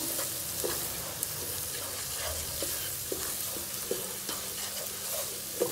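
Spiced onion-and-tomato masala sizzling steadily in ghee in a kadhai, while a wooden spatula stirs it and scrapes and knocks against the pan in short, irregular strokes.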